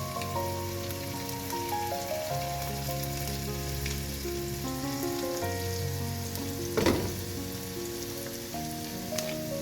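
Food sizzling and frying in a pan, with background music of slow held notes over it, and one sharp knock about seven seconds in.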